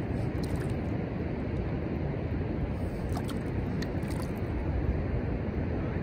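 Steady low rumble of ocean surf and wind at the shore, with a few faint small clicks around the middle.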